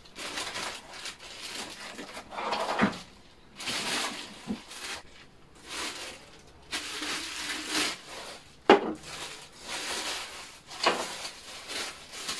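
Plastic wrapping crinkling and rustling in repeated bursts as wrapped items are handled, with several knocks of objects set down on a tabletop, the loudest a little under nine seconds in.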